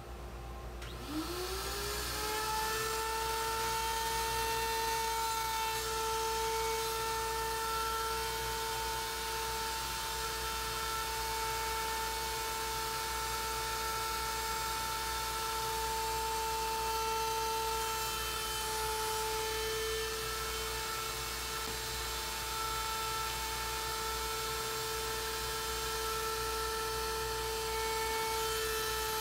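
Table-mounted router with a flush-trim bit, in a JessEm lift, switched on about a second in. It winds up in pitch and then runs at a steady high whine while the panel corners are trimmed against a corner-radius jig.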